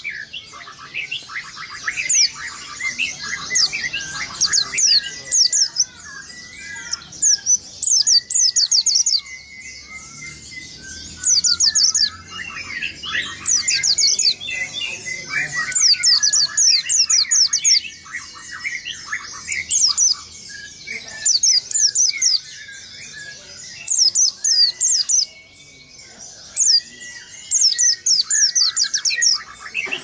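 White-eye (pleci) singing a rolling song. Rapid runs of high, quickly falling notes come every couple of seconds over a continuous lower twittering chatter.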